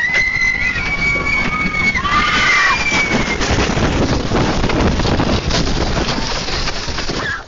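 Coach passengers screaming in terror, several high held screams overlapping for about three seconds, over a loud rushing, rattling din as a tornado hits the coach.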